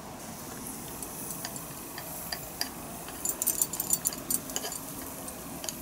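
A small wire whisk scraping and tapping against the inside of a mixing bowl as batter is scraped out into a waffle maker. The clicks are irregular and come thickest in the second half, over a faint steady hiss.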